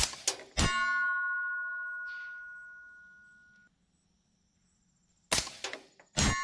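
Two rifle shots about five seconds apart, each followed a fraction of a second later by the clang of the bullet hitting an AR500 steel target. The plate rings on in a steady tone that fades slowly over a few seconds.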